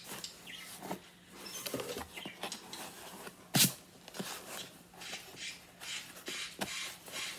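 Packaging crinkling and rustling in the hands as it is worked open, a run of short crackles with one louder sharp crackle about halfway through.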